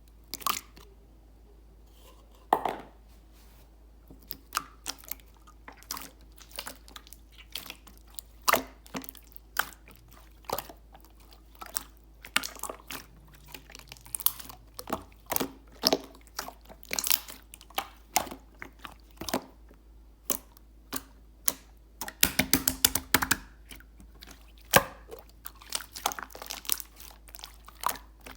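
Clear slime being worked by hand, making irregular sharp pops and clicks, with a quick run of crackling pops about twenty-two seconds in.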